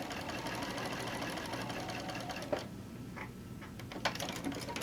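Sewing machine stitching at a fast, even pace, stopping abruptly about two and a half seconds in. A few light clicks follow.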